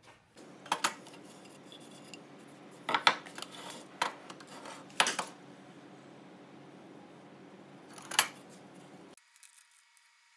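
Metal TV wall-mount bracket being handled against wood: several sharp clacks and clinks spread over a few seconds, over a low steady background hum.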